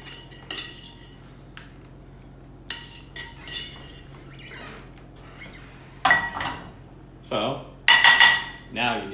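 Metal tongs clinking and scraping against a stainless steel skillet and ceramic bowls as pasta is served, with a few ringing metal clanks, the loudest two about six and eight seconds in.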